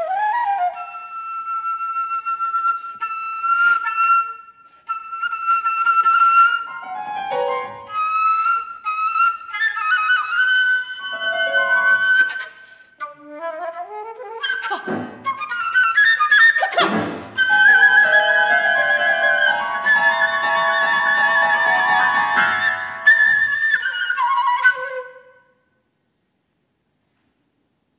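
Concert flute playing contemporary music: long held high notes and short runs, steep sweeping pitch slides about halfway through, and then a wavering, trill-like passage. The music breaks off suddenly about three seconds before the end.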